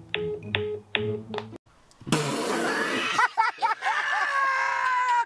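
A few short plucked keyboard notes, then a man laughing loudly over a noisy, rough recording, with a run of quick 'ha-ha' pulses.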